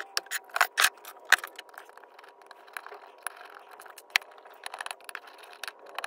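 Metal clinks, taps and light scrapes as the steel plates and bolted frame of an endplate-crimping jig are handled and lifted apart, with a sharper knock about four seconds in.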